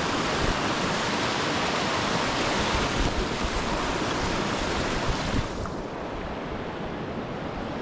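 Rushing river water of the North Fork of the Merced, running high, as a loud steady hiss with low rumbling underneath. A little after five seconds in it turns duller and a little quieter.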